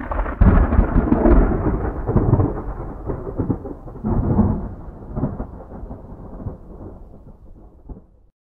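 Rolling thunder: a loud crack and rumble, a second swell about four seconds in, then a gradual fade before it cuts off abruptly.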